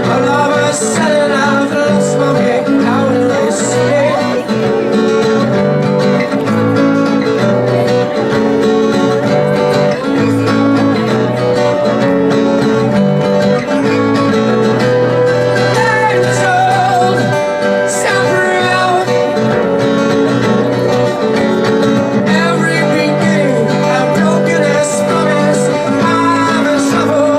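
Live acoustic music: plucked strings playing held, shifting chords without a break.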